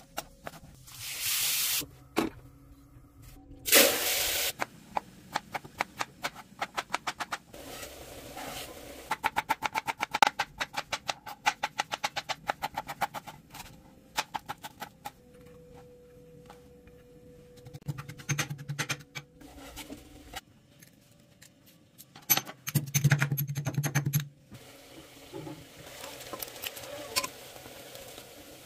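Kitchen knife cutting on a plastic cutting board, with runs of quick chopping strokes several a second through the middle. Scattered knocks and brief rustling hiss come from handling the food.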